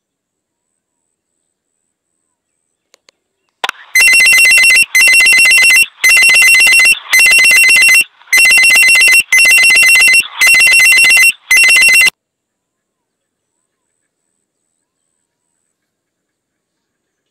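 Loud electronic ringing tone: two steady high notes sounding together, in about eight pulses of roughly a second each with short breaks between them. It starts about four seconds in and cuts off abruptly about twelve seconds in.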